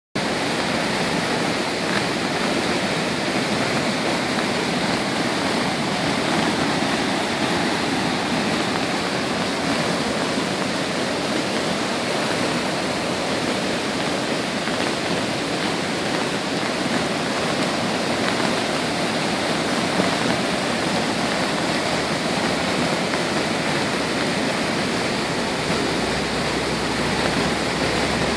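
Flooding Boulder Creek: brown floodwater churning over a drop and through the trees, making a loud, steady rushing noise that does not let up.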